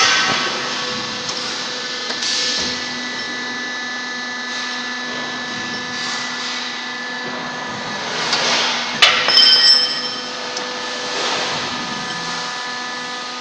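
Sawdust block press machine running, a steady motor hum with a few swells of noise. About nine seconds in there is a sharp knock with a short ring after it.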